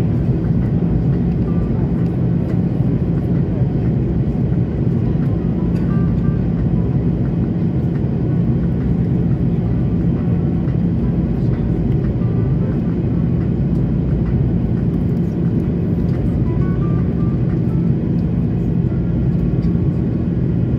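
Steady cabin noise of an Airbus A330-200 in the climb, heard from a seat just behind the wing: a loud, even rush of engine and airflow noise with a low steady hum underneath.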